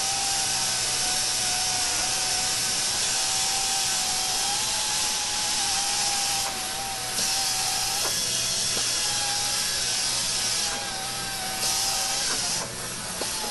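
Small air-powered buffer with a foam pad polishing urethane clear coat with a heavy-cut compound: a steady thin whine over a strong air hiss. The sound dips briefly a few times as the pad moves over the panel.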